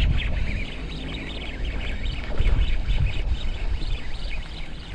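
Gusty wind rumbling on the microphone, swelling at the start and again about halfway through, over a steady scatter of short, high bird chirps.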